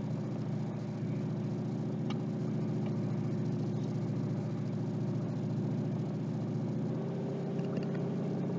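A car's engine and road noise heard from inside the cabin while driving: a steady low drone, its note shifting slightly about seven seconds in, with a few faint ticks.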